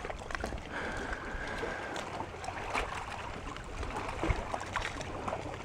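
Water lapping and trickling against a rowing canoe's hull, with scattered small clicks and knocks. A faint high whistle-like tone sounds for about a second near the start.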